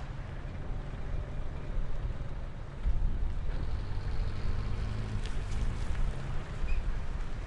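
Motor truck engine running with a steady low rumble, growing louder about three seconds in.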